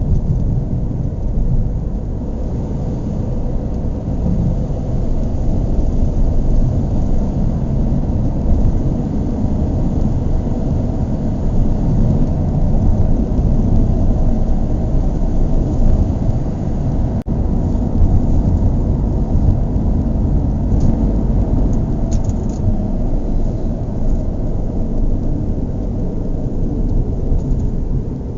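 Car engine running steadily, a loud low rumble, with a momentary break about seventeen seconds in.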